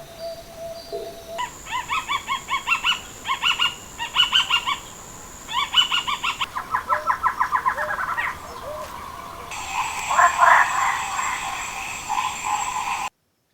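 Birds calling in quick runs of repeated notes, several notes a second, in separate bursts, with a steady high-pitched tone behind them at times. The sound cuts off suddenly near the end.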